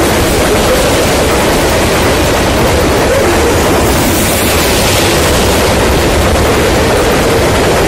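Freight train's covered hopper cars rolling past close by at speed: a loud, steady rush and rumble of steel wheels on rail.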